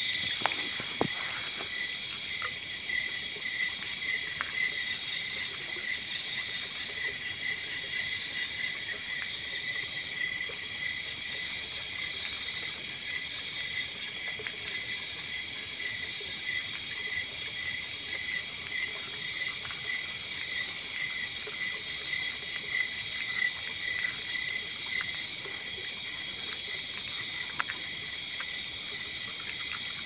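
Night insects calling steadily in a chorus of several high trills at different pitches. The lowest call pulses in an even rhythm throughout, and a few faint clicks are scattered through it.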